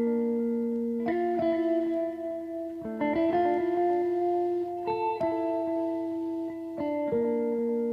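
Background music: a guitar strikes sustained chords that change about every second or two.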